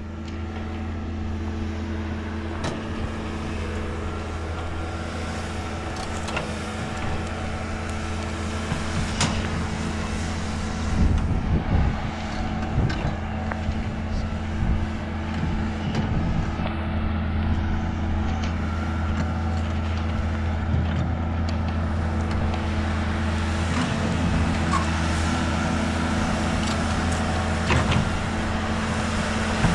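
Heavy diesel excavator engine running steadily, with scattered clanks and knocks from the working machine, busiest about a third of the way in.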